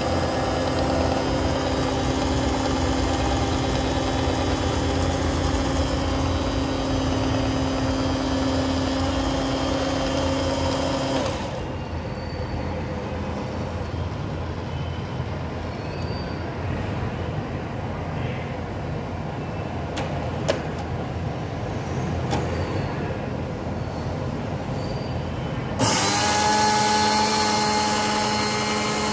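Electric motors of an automated baking vending machine running as its internal arm moves. A steady motor hum with a held whine stops about 11 seconds in, and a quieter stretch with a few light clicks follows. Near the end another motor starts with a higher whine as the machine's panel closes.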